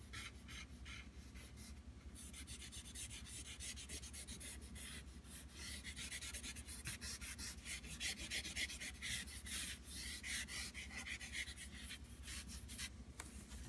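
Stick of charcoal scratching and rubbing over drawing paper in quick, short, repeated strokes, as the dark tone of the shading is built up in layers.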